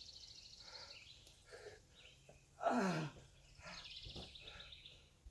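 A man's pained groan, one short cry that slides steeply down in pitch about halfway through, from having just smashed his finger with a hammer. Birds chirp faintly in the background.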